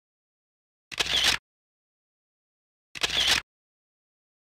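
Camera shutter sound effect, twice, about two seconds apart, each a sharp click lasting about half a second, with dead silence between.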